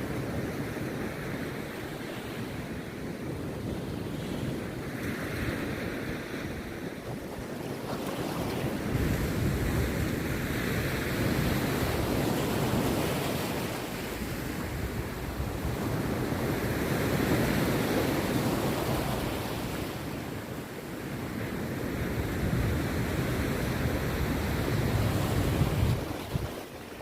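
Rough sea waves breaking on a beach, rising and falling in long surges several seconds apart, with wind rumbling on the microphone.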